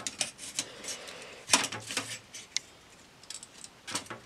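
Light clicks and clinks of metal VEX robot parts, a screw and nylon spacers being handled and fitted by hand, with a denser cluster of clicks about a second and a half in and another near the end.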